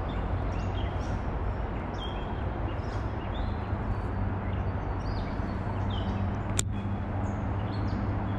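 Small birds chirping, short high notes repeated on and off, over a steady low rumble. A single sharp click about six and a half seconds in.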